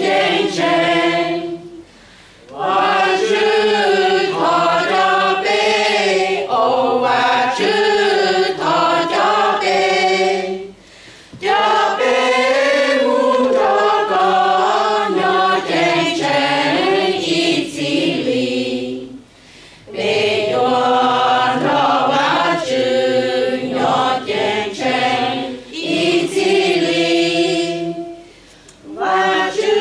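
Mixed choir of men's and women's voices singing a Hmong Christian hymn in long phrases, each broken by a short pause for breath about every eight to nine seconds.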